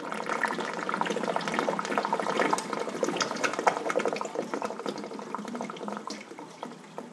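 Full-siphon drain line of a Bean Animal aquarium overflow gurgling and sucking air as the overflow box drains empty with the return pump off: the siphon is breaking. A dense run of gurgles and pops, strongest in the middle, tails off after about six seconds.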